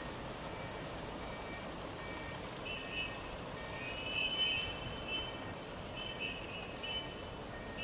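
City buses running and manoeuvring in a switchback bus terminal, with a steady engine and traffic hum. A reversing bus's back-up alarm beeps repeatedly, and from about three seconds in a louder, higher beeping comes in short groups.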